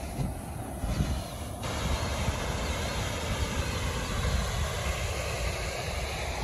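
Wind buffeting the phone's microphone in gusts, over the steady rush of a small waterfall spilling into a pond.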